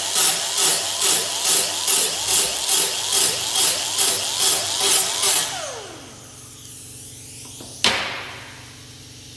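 Pneumatic right-angle grinder with a small disc grinding down a weld on sheet steel, the sound surging in a steady rhythm of about two passes a second. About five and a half seconds in the trigger is let go and the tool spins down with a falling whine, and near the end there is one sharp clack as it is set down on the steel table.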